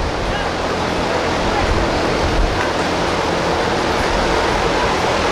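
Wind buffeting an outdoor microphone: a steady rushing noise with a low rumble that gusts about halfway through. Faint voices sit underneath.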